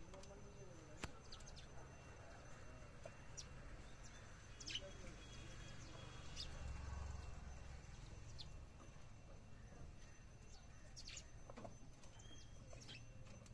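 House sparrows chirping faintly, short scattered chirps over a low background rumble.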